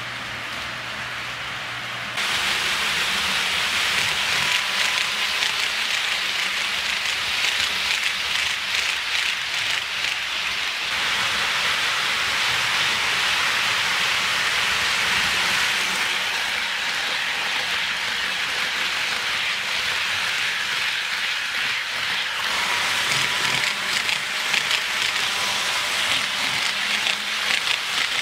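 HO-scale model train running on Kato Unitrack laid on a wooden floor: a steady rattling rush of metal wheels rolling over the rails, getting louder about two seconds in.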